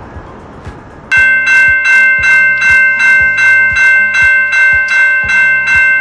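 A passing train fades away, then about a second in a level-crossing warning bell starts ringing loudly and evenly, about three strikes a second.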